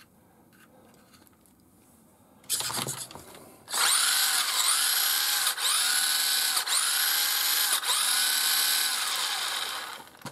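Electric motor and gear drivetrain of a Tamiya TL01B buggy whining as it is run on the bench through a mechanical speed controller: a short blip about two and a half seconds in, then about five throttle pulses, each rising quickly in pitch and holding, before it winds down near the end. This is a test of the freshly refitted mechanical speed controller, which works.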